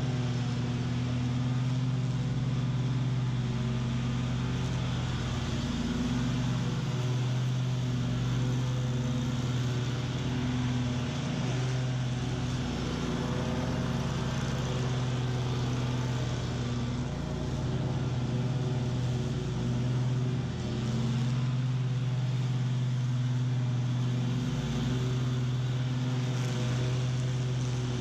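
Bobcat QuickCat 36-inch stand-on mower running steadily while mowing tall, thick weeds, the engine holding an even pitch with small wavers in level.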